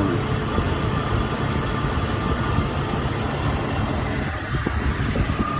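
2000 Jeep Cherokee XJ engine idling steadily while air is bled from its cooling system, the engine still warming toward normal temperature.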